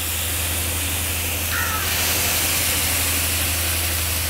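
Chicken tikka skewers sizzling in oil on a hot flat tawa: a steady frying hiss. A short high-pitched sound cuts in briefly about a second and a half in.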